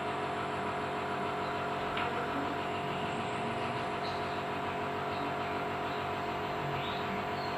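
Nebulizer compressor running with a steady hum, misting medicine for a young child's breathing treatment.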